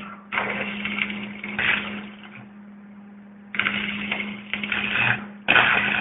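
Stick-welding arc being used to cut through steel, crackling and hissing in three bursts of one to two seconds each as the arc is struck and broken, over a steady low hum.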